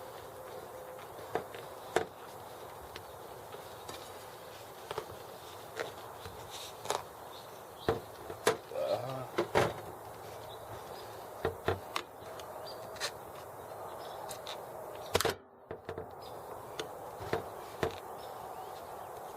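Irregular clicks, taps and knocks from a bicycle tire being worked onto its rim by hand: the rubber bead and tube being pushed and snapped over the rim edge, and the wheel being handled.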